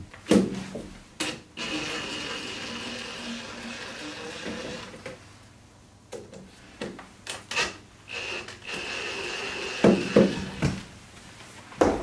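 Cordless drill backing screws out of a metal window track. The motor runs for about three seconds, then again briefly near the end. Sharp knocks and clicks come between and around the runs, the loudest about half a second in and just after the second run.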